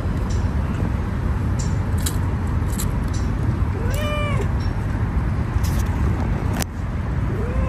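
A kitten meows once, a short cry that rises and falls, about four seconds in, and begins another meow at the very end. A steady low rumble runs underneath, with a sharp click shortly before the second meow.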